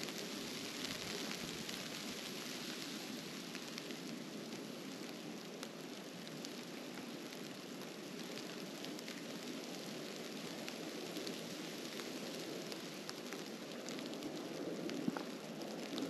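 Snowstorm ambience on a walk: a steady crackling hiss of falling snow and steps through it, with one sharper tick about fifteen seconds in.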